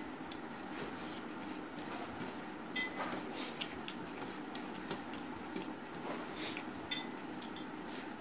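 Fingers mixing and scooping rice on a stainless steel plate, with small soft scrapes and clicks, and two sharp ringing clinks of the metal plate, about three seconds in and again near seven seconds.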